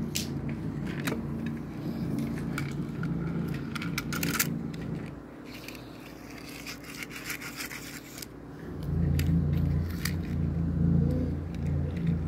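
Red die-cast toy car and plastic toy track pieces being handled on a tile floor: scraping, with scattered clicks and knocks. A low steady rumble runs through the first five seconds and comes back about nine seconds in.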